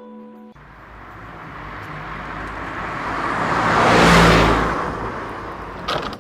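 A motor vehicle passing by: a rushing noise with a low engine rumble that builds for about three seconds, peaks about four seconds in, then fades, followed by a few clicks near the end.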